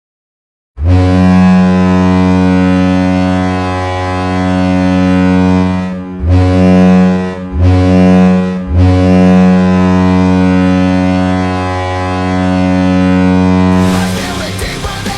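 Cleveland Monsters' ship-style goal horn sounding after a second of silence: a long blast, two short blasts, then another long blast. A rock goal song kicks in near the end.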